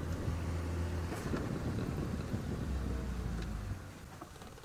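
Open safari game-drive vehicle driving along a dirt track: a steady low engine drone with tyre and road noise, getting quieter near the end.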